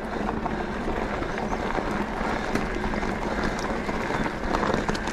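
Enduro e-bike riding over a rough dirt trail: steady wind rush and rumble on the microphone with tyre noise, and scattered sharp clicks and rattles from gravel and the bike.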